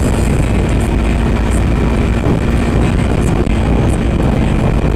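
Yamaha R15 motorcycle's single-cylinder engine running steadily at a cruise of about 70 km/h, under loud wind buffeting the microphone.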